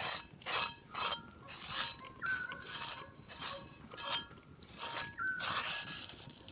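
Close-up chewing of a crisp seared meat crust, crunching about twice a second.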